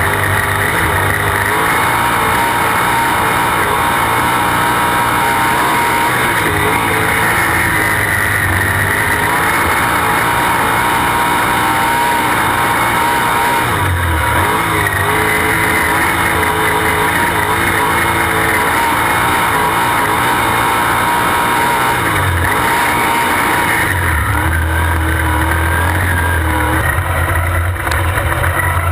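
Sprint car's V8 engine running at racing speed on a dirt oval, heard close-up from a camera mounted on the car's roll cage. It runs loud and steady, with the engine note dipping briefly a couple of times as the driver lifts and gets back on the throttle.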